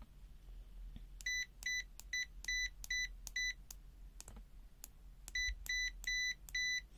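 UYIGAO UA10000 digital multimeter's continuity beeper giving short, high beeps, about two or three a second. They stop for nearly two seconds in the middle, then resume. Faint clicks can be heard between the runs.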